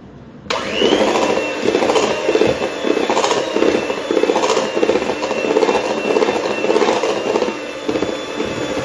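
Electric hand mixer switched on about half a second in and running with a steady whine, its beaters churning cake batter in a stainless steel bowl, the sound swelling and dipping about once a second as the mixer is moved around. The oil is being beaten into the batter.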